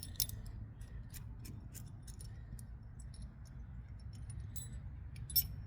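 Light metallic clicks and clinks of steel mounting bolts being handled and set into the crane base's holes, scattered irregularly with a sharper click near the end, over a faint low rumble.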